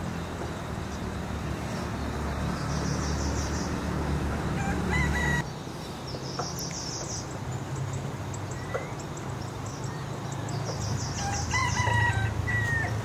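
A rooster crowing, once a little before the middle and again, louder, near the end, over steady rural background noise. A short, high, rapid chirping recurs every few seconds.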